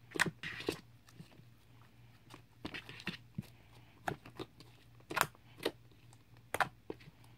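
Slime being squeezed and kneaded by hand, squishing with irregular sharp pops and clicks.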